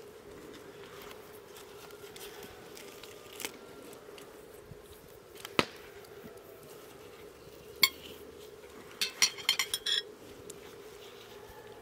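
Dishes and utensils clinking: a sharp clink about halfway through, another about two-thirds in, then a quick run of clinks near the end, over a faint steady hum.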